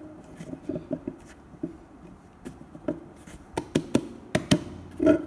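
Fingers tapping and rubbing on the plastic seat of an IKEA Marius stool: an irregular run of light taps and clicks, ending in a louder knock with a short ring from the hollow seat about five seconds in.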